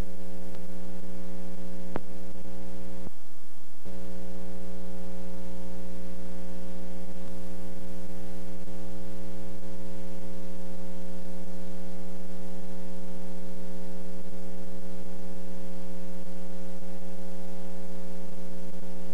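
Steady electrical buzz with a stack of overtones, typical of hum on a videotape's audio track. It drops out briefly about three seconds in, then carries on unchanged.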